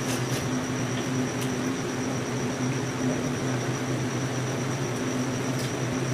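Steady electric motor hum with an even whir, from an appliance such as a fan or the freezer, with a few faint clicks.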